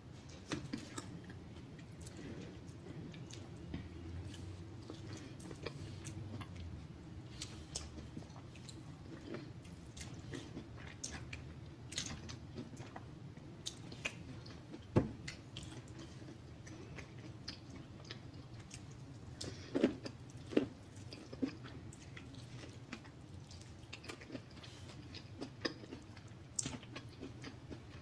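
Close-miked chewing with wet mouth smacks, from someone eating a buttery shrimp boil. Scattered sharp clicks throughout, the loudest about halfway through and a few more about two-thirds of the way in.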